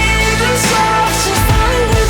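Pop music with drum hits under a held melody line.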